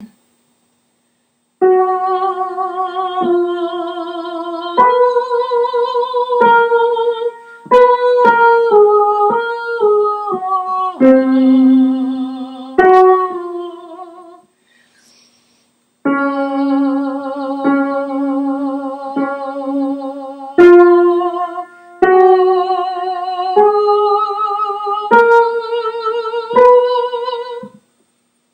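A single alto melody line with vibrato, voice-like and wordless, as if hummed or sung on a vowel. It is played as a part-learning track in two phrases separated by a short pause near the middle, one note after another.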